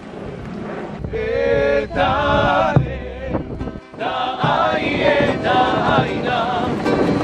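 Polynesian song sung by male voices to ukulele accompaniment. The singing comes in about a second in.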